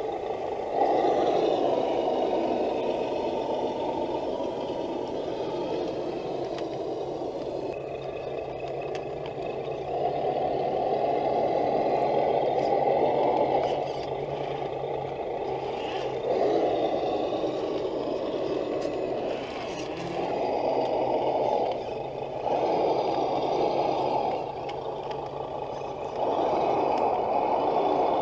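Electric motors and gearboxes of two RC Land Rover Defender 110 crawler trucks whirring under throttle. The sound comes in several surges of a few seconds each as the trucks are driven and stopped, over a steady low hum.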